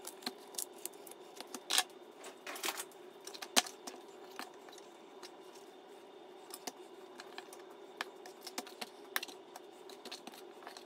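Kitchen knife clicking and tapping against a plastic cutting board and foam meat tray as raw chicken breasts are trimmed: scattered light clicks, a few sharper ones in the first four seconds, over a faint steady hum.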